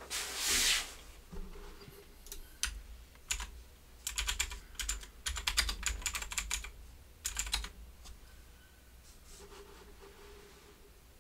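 Typing on a keyboard: several quick runs of key clicks, the densest in the middle, after a short brushing rustle at the start.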